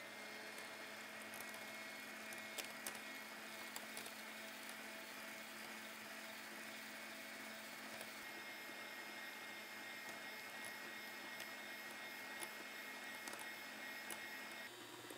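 Electric hand mixer running steadily, its twin wire beaters whipping egg yolks and sugar in a glass bowl until the mixture turns thick and pale, with occasional light clicks of the beaters against the glass.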